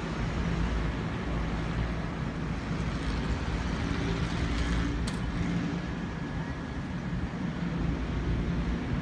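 Steady low rumble of distant city road traffic, with a single faint click about five seconds in.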